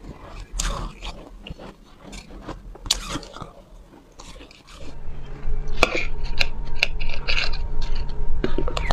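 Close-miked crunching and chewing of soft, frosty ice, a run of short crisp crackles. About five seconds in the sound jumps louder, with a steady low hum beneath the crunches.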